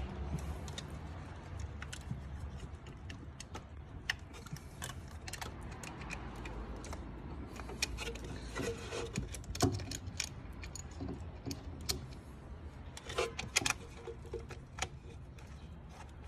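Scattered clicks, clinks and rattles of hand tools and plastic engine parts being handled during reassembly, busiest in the middle and about three-quarters of the way through, over a steady low hum.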